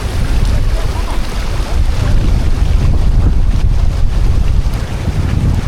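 Wind buffeting the microphone: a loud, fluctuating low rumble.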